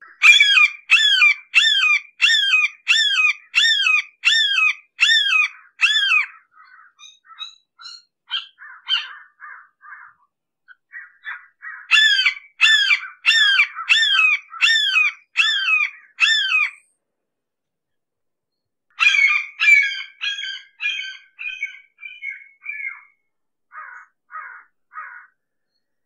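Red-shouldered hawk screaming in runs of loud repeated calls, about two a second. The first two runs have about ten calls each, with softer, shorter notes between them. A third run starts about two-thirds of the way in and fades away into a few faint notes.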